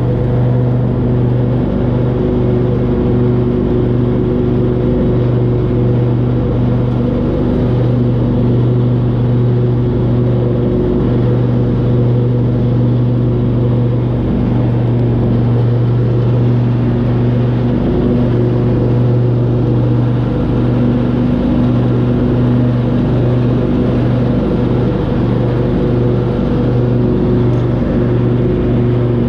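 Riding lawn mower engine running steadily, a constant drone with a strong low hum.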